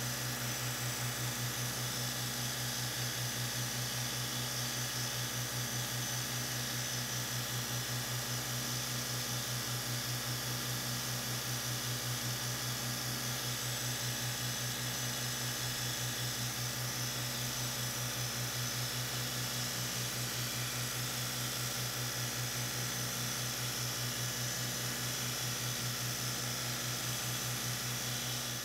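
Electric belt grinder running with a steady hum and an even hiss as an usuba knife blade is held against the abrasive belt, grinding off rust.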